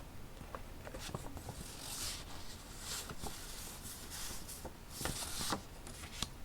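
Paper rustling as vintage paper sheets are handled and shifted, with small taps and clicks in between; several soft swells of rustle, the loudest about five seconds in.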